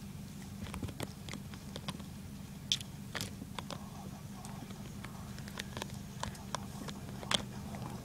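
A dog chewing a car seatbelt's webbing: irregular clicks and snaps of its teeth on the strap, a few every second, over a steady low hum.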